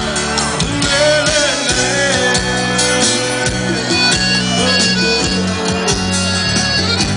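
Live sertanejo band playing an instrumental passage at concert volume, with held bass and chord notes under a wavering lead melody.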